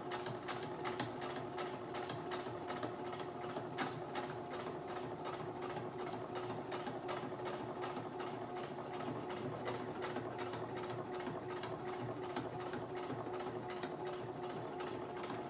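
Electric household sewing machine stitching at a slow pace: a steady motor hum with a sharp click from each needle stroke, roughly two to three a second, as it sews through the layered mask fabric along the nose strip.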